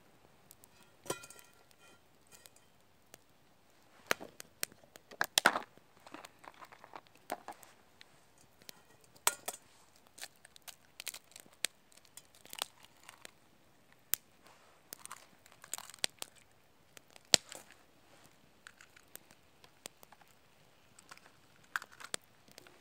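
Wood campfire crackling with sharp, irregular pops and snaps, mixed with clinks and scrapes of a frying pan and utensils being handled over the fire.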